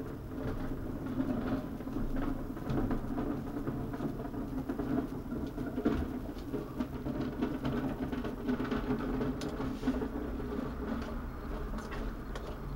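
Pot of broad beans and bacon simmering on a portable gas stove: a steady low bubbling run through with many small, irregular pops.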